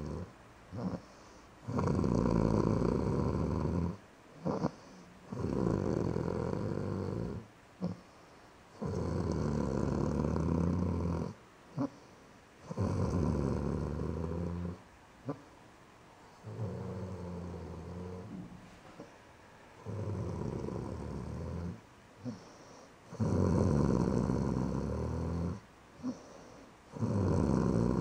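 Snoring: a long snore of about two seconds, one every three to four seconds, with short faint clicks or snorts in the pauses between them.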